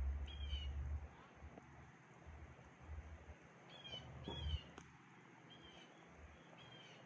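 A bird calling faintly with short, high chirps, several times and some in quick pairs, over a low rumble near the start and again midway.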